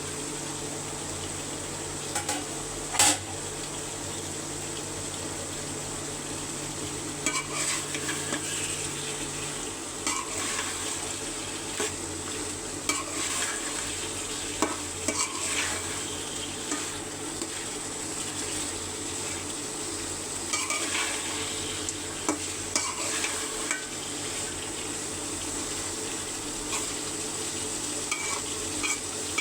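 Chicken pieces frying with spices in oil in a cooking pot, sizzling steadily, while a spoon stirs and scrapes against the pot with occasional knocks. A sharp clink of the spoon on the pot comes about three seconds in.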